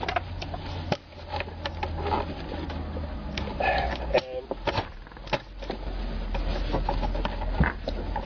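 Scattered clicks, taps and knocks of plastic steering-column trim and hand tools being handled, over a steady low hum.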